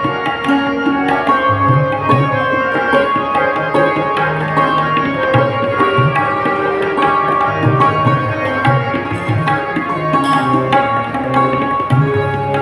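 Live ghazal accompaniment: tabla playing a steady rhythm, the bass drum's strokes sliding in pitch, over sustained harmonium chords.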